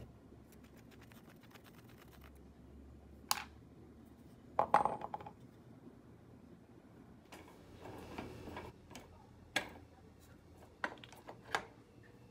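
Sparse handling noises of tools on a wooden workbench: light clicks and knocks with a few metallic clinks. The loudest cluster comes about five seconds in.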